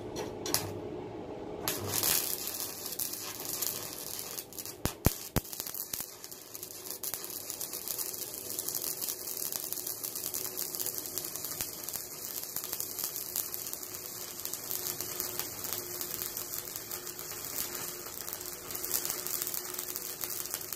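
Stick (shielded metal arc) welding with a mild steel electrode on a 200 amp arc welder: the arc crackles steadily as the bead is run, starting about two seconds in and cutting off abruptly at the end. A few sharp clicks about five seconds in.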